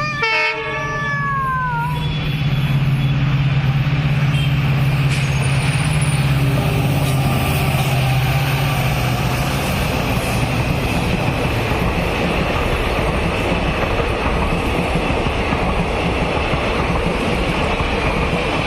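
Indian Railways diesel locomotive and its train passing close: a steady low engine drone under the broad noise of wheels on rails, which grows louder after about two seconds and stays level. A short tone falling in pitch sounds at the very start.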